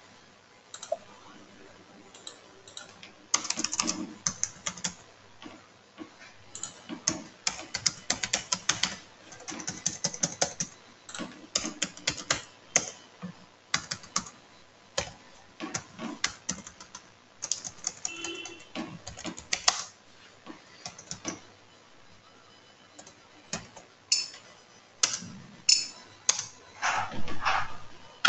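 Computer keyboard being typed on, keystrokes clattering in irregular bursts with short pauses between them.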